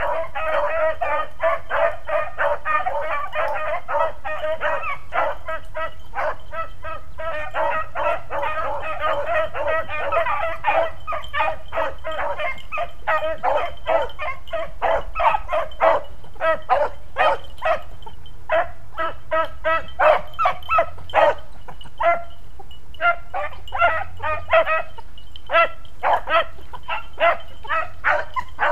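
A pack of beagles baying in chorus while running a scent track, many voices overlapping at first, then thinning out to separate bays with short gaps in the later part.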